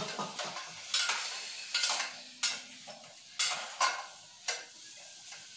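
A utensil stirring and scraping in the pot of a small electric rice cooker, with a sharp clink or scrape about once a second, over the sizzle of chicken and red onion frying in vegetable oil. The strokes grow quieter toward the end.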